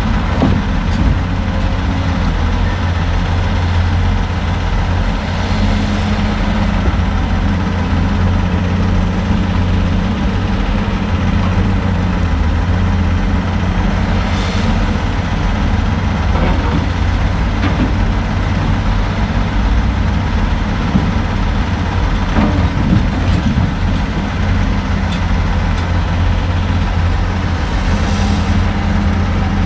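Heavy diesel engines running steadily: a log truck idling and a log loader working, a deep, even drone. A few faint knocks and clunks sound through it as the loader's grapple lifts logs off the trailer.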